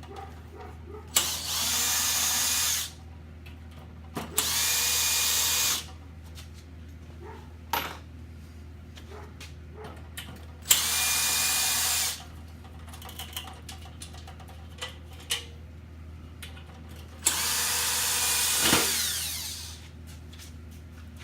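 Power driver with a 7/16 socket backing out the four bolts that hold a Weber kettle bowl to its cart: four separate runs, one per bolt, with small metal clicks between them. The last run slows and drops in pitch as it winds down.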